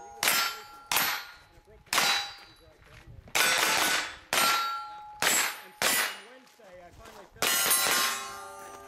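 Pistol caliber carbine shots hitting steel targets, about eight shots at uneven spacing. Each shot is followed by the ring of the struck steel plate, which fades over most of a second.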